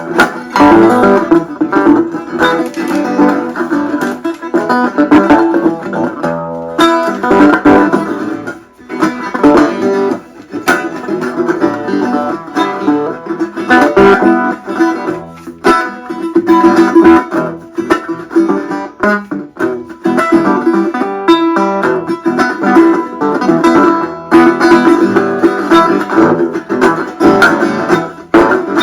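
Dobro resonator guitar played as a continuous stream of plucked notes, with a short lull about eight seconds in.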